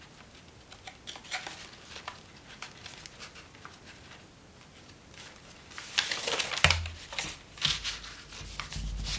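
A strip of elephant hide paper handled and folded by hand: small crinkles and crackles, then about six seconds in a louder rustle and a low thump as the strip is laid down and pressed flat on a cutting mat, with more rustling near the end.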